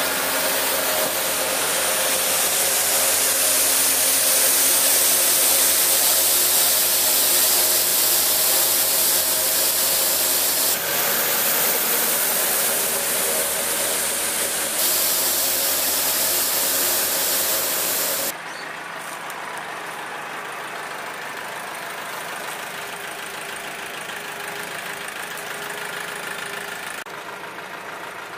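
An Apollo 45 hp tractor's engine runs steadily while the tractor-mounted road sweeper's rotating brush sweeps over concrete, giving a loud, steady hiss over the engine. About two-thirds of the way through the sound drops suddenly and becomes quieter, the engine still running.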